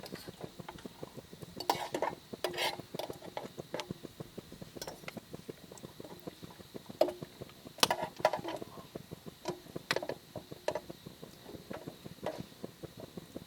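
Metal cooking pots and utensils clinking and scraping in a few bunches, with a light ringing on the louder knocks, over a steady light crackle of small ticks.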